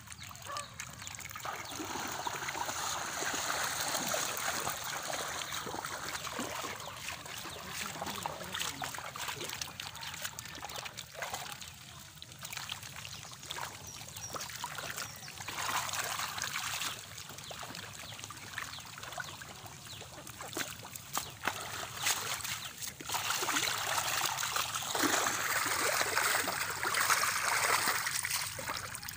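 Shallow muddy water sloshing, trickling and splashing around a bamboo-framed push net as it is worked through a pond and as wet mud and weed are handled inside it, with many small clicks, loudest near the end.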